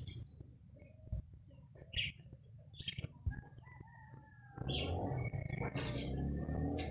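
Short, high bird chirps scattered through, and a rooster crowing faintly in the distance around the middle, its long call falling in pitch. From a little past halfway a low, steady rumble comes in under the chirps.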